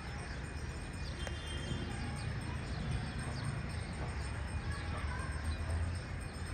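Small birds chirping repeatedly in short, quick notes over a steady low rumble of city ambience.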